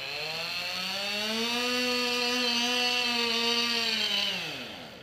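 Chainsaw revving up, running at high speed for a couple of seconds, then its pitch falling back as the throttle is released near the end.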